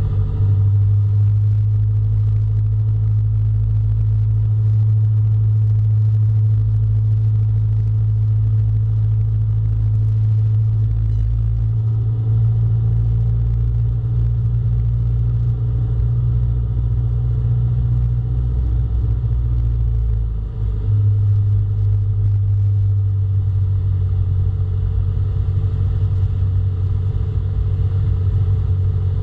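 Cessna Skyhawk's single piston engine and propeller droning steadily, heard inside the cabin. About 20 seconds in the drone briefly dips, then carries on.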